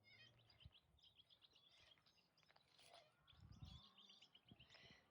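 Faint bird chirps in the background, short calls repeated throughout, with one soft low thump about three and a half seconds in.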